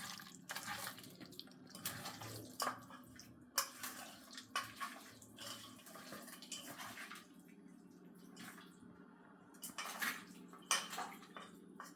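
Raw mutton pieces being mixed by hand with mustard oil, turmeric and salt in a bowl: faint, irregular wet squelches and soft clicks.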